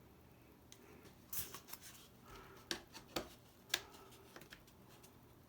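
Faint handling noises: a scattering of light clicks and rubbing as a plastic drop tank is worked into place under a foam model-airplane wing.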